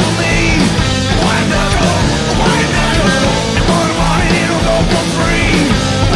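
Loud rock music with a singing voice.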